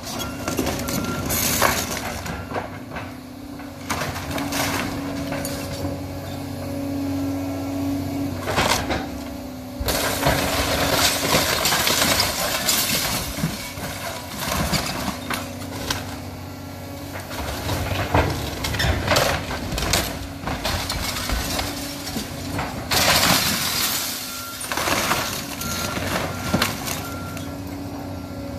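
Volvo hydraulic excavator's diesel engine running steadily while its grapple tears into a house. Repeated cracks of splintering wood and breaking glass, with long crashing stretches of falling debris about ten seconds in and again near the end.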